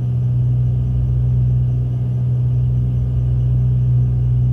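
Steady cabin drone of a Cessna 310's two piston engines and propellers, heard inside the cockpit while climbing toward cruising altitude, with a strong, even low hum.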